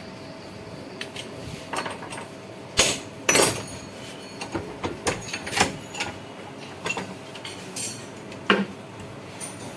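Irregular metallic clanks and clinks of tools and parts being handled while a shock absorber is worked on, about a dozen knocks with the two loudest around three seconds in.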